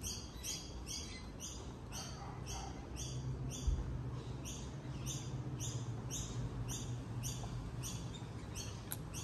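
A bird chirping steadily, about three short high calls a second, each falling in pitch, with a faint low hum underneath in the second half.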